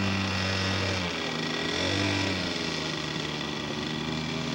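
Engine of a radio-controlled scale model airplane running, its pitch dipping and rising again about one to two seconds in, then holding steady.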